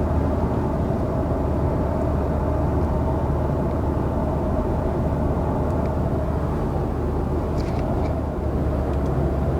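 2001 Volvo S40's 1.9-litre turbocharged four-cylinder engine and tyre noise heard from inside the cabin while driving at speed: a steady drone that dips briefly about eight seconds in.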